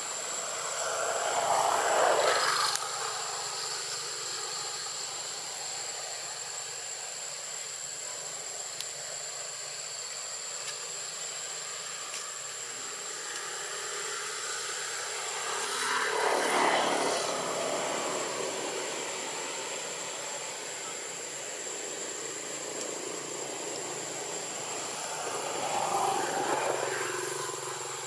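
Three distant vehicles passing one after another, each swelling up and fading away over two or three seconds, over a steady high-pitched whine.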